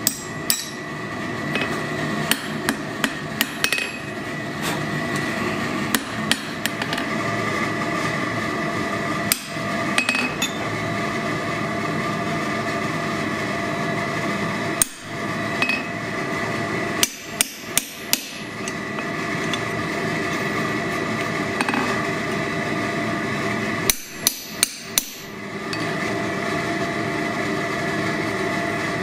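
Blacksmith's hammer striking hot steel on an anvil: a quick run of blows at first, then single blows and short sets of about four, some driving a punch held on the work. A steady hum from the running forge carries on underneath.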